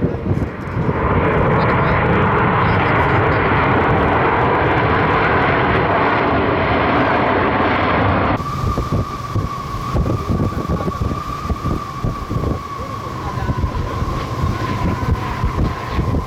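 Jet airliner engines on landing approach, a loud rushing noise as the plane passes close. About eight seconds in it cuts abruptly to a steady high engine whine from another airliner, dropping slightly in pitch, with gusty wind buffeting the microphone.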